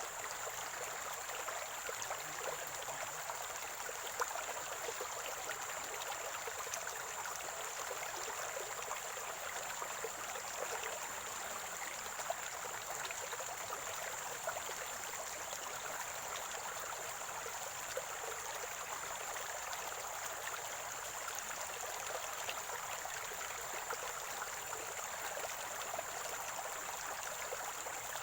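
A small stream of water gurgling and trickling steadily, with a thin, steady high-pitched tone above it.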